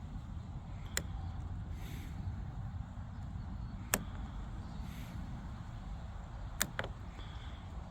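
A few sharp, isolated clicks, about one second in, near four seconds, and a close pair near the end, from a Lishi CY24 pick-decoder being worked in a Dodge Ram door lock, over a steady low rumble.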